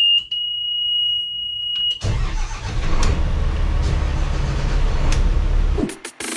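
A steady high-pitched warning buzzer sounds from the helm panel, then about two seconds in the yacht's Iveco marine diesel engine starts and settles into a deep, steady running. It is cut off abruptly near the end by a burst of electronic music.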